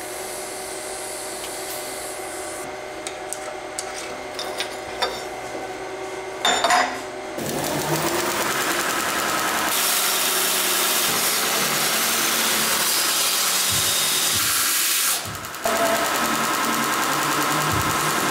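A belt grinder starts about seven seconds in, and a steel part is ground against its abrasive belt, giving a loud, even grinding hiss that breaks off briefly once, a little past the middle, then resumes. Before that there is only a low steady hum with a few light clicks of handling.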